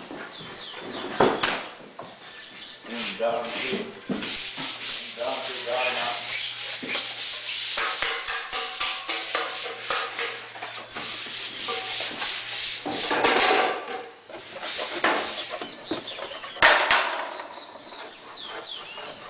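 Repeated rough rubbing strokes at an irregular pace, with a faint steady hum partway through.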